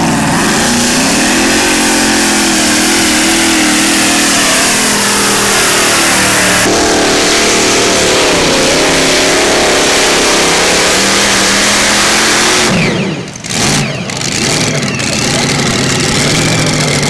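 Modified pulling tractor's engine running hard under load as it drags the weight sled, its pitch wavering. About 13 seconds in the throttle is cut and the engine drops to a lower, steady idle, the end of a full pull.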